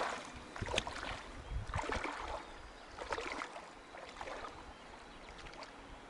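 Feet wading through shallow river water: a series of irregular splashes and sloshes about a second apart.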